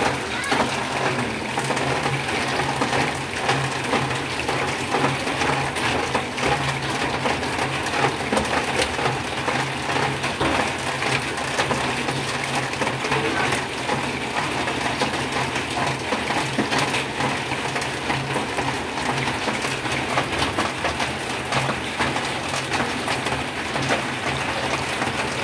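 Cooking oil sizzling and crackling steadily as turon (banana spring rolls) fry in a pan, over a steady low hum.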